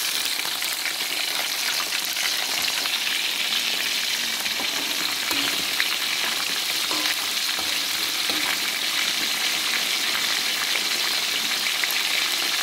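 Two whole red tilapia deep-frying in hot oil in a wok: a steady sizzle with many small crackling pops of spattering oil.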